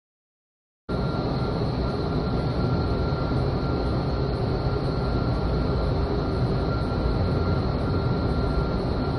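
Vertical wind tunnel for indoor skydiving running: a steady rush of air with two faint, thin whining tones, heard from outside the glass flight chamber. It comes in suddenly about a second in, after dead silence.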